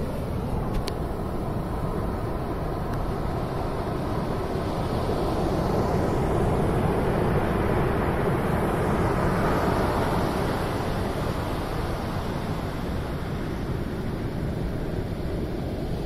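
Heavy surf breaking on a sandy beach in a rough sea: a continuous wash of waves with a deep low rumble, growing louder about six seconds in and easing again after about ten seconds.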